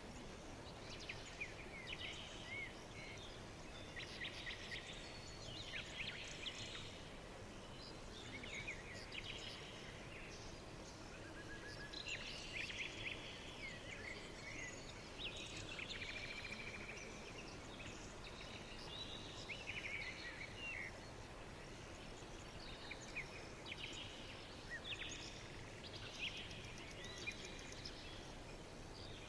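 Several small birds chirping and singing, with many short calls and trills over a steady background hiss.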